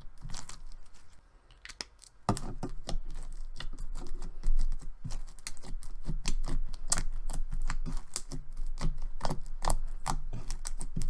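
Slime being squished and poked by hand, making quick, irregular sticky clicks and pops that start suddenly about two seconds in.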